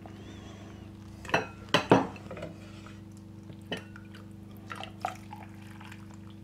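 Chicken broth ladled out of a stainless steel stockpot and poured into a bowl of chicken and vegetables, with liquid splashing and dripping. A black ladle knocks against the pot a few times, loudest twice about a second and a half to two seconds in.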